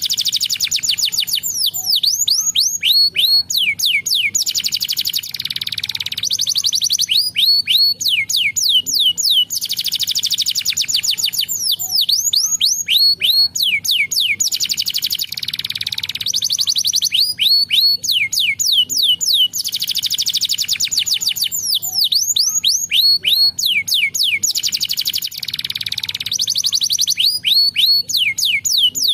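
Domestic canary singing: rapid trills of quick, falling whistled notes, phrase after phrase with short breaks between them.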